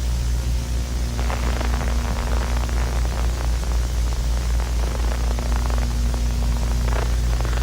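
Steady static noise over a low electrical hum. Dense crackling joins in about a second in and continues.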